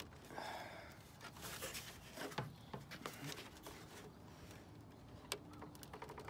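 Hands working the plastic clips on the back of a Toyota Tacoma grille to free the chrome bezel: faint scrapes and clicks of plastic, with sharper clicks about two and a half and five seconds in.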